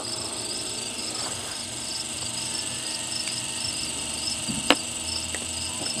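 Crickets chirping steadily, a high pulsing trill at about four pulses a second, over a faint steady low hum. There is a single sharp click about three-quarters of the way through.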